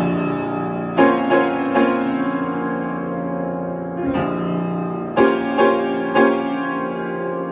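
Solo piano improvisation: slow chords struck in small groups, about a second in and again around four to six seconds in, each left ringing and fading away.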